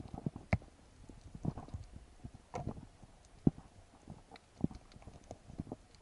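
Underwater, muffled and irregular knocks and thumps with a few sharper clicks from a freediver's movements and speargun gear; the loudest knocks come about half a second in and about three and a half seconds in.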